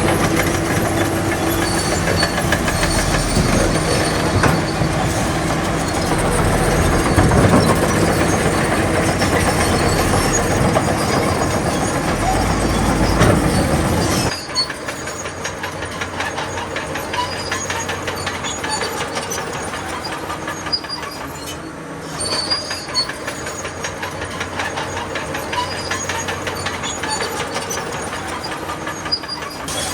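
Crawler bulldozer at work: diesel engine running loud, with clatter from its steel tracks. About halfway through the sound cuts abruptly to a quieter, fast, even clatter.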